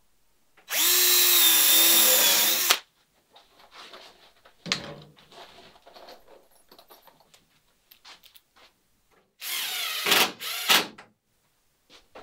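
Cordless drill running: one steady two-second run about a second in, then two short bursts near the end whose pitch rises as the motor spins up. A knock and light handling clicks come in between.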